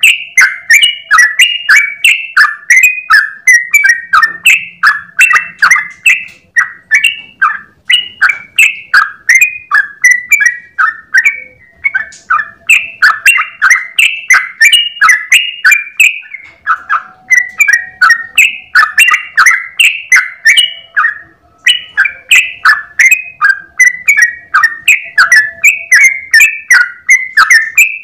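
Yellow-vented bulbul (trucukan) singing a long, fast run of short, bubbly falling notes, about two to three a second, broken only by a few brief pauses.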